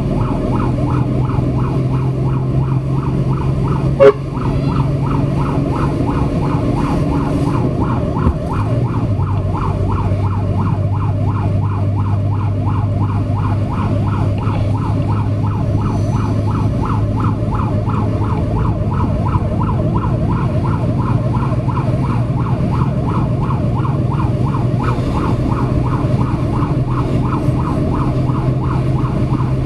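Fire truck's siren sounding a fast repeating yelp, about four cycles a second, heard from inside the cab, with the truck's engine running steadily underneath and settling lower about eight seconds in. A single sharp knock about four seconds in.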